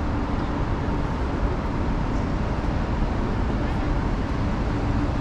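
Steady running noise of a moving vehicle: a low rumble with a faint even hum, without change.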